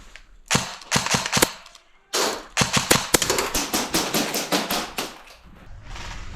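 Airsoft guns firing: a short burst of sharp shots about half a second in, then a longer stretch of rapid fire lasting about three seconds.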